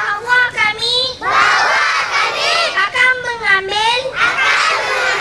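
Young children shouting and chanting together, with one boy's voice close on a microphone.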